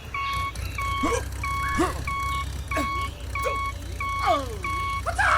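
Repeating electronic two-tone beeping, alternating high and low, about one and a half times a second, with short squeaky swooping sound effects over it.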